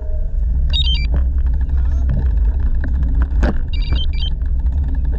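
Steady low rumble of wind buffeting a bike-mounted action camera's microphone while cycling, with tyre noise on the path and a few light knocks from bumps.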